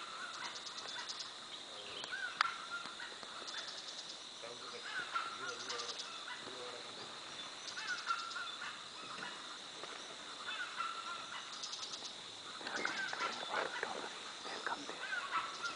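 Forest ambience: a steady high insect drone, with a pulsing insect trill about every two seconds and short, repeated animal calls throughout. A burst of rustling comes about three-quarters of the way through.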